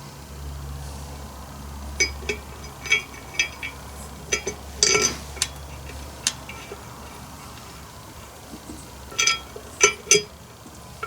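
Light metallic clinks and taps of hand tools against small steel parts and bolts, in a run of quick strikes and then a second short cluster a few seconds later. A steady low hum sits underneath for the first half.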